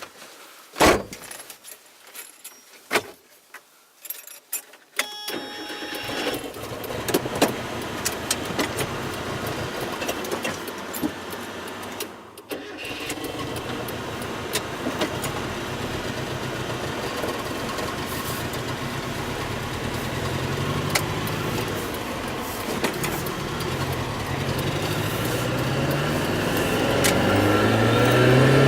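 A few sharp clicks, then a Mazda Miata's four-cylinder engine starts about five seconds in and runs, dipping briefly near the middle, with revs rising toward the end. The owner reports this engine stumbles and misfires.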